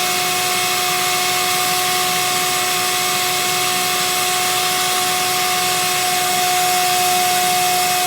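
Shop vac running steadily, pulling air through a dryer vent duct: a steady whine over a rushing hiss.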